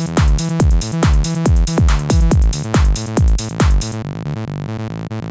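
Psytrance-style electronic music: a pounding kick drum at about two beats a second under hi-hats and a rolling synth bassline. About four seconds in, the kick and hi-hats drop out, leaving the synth line alone.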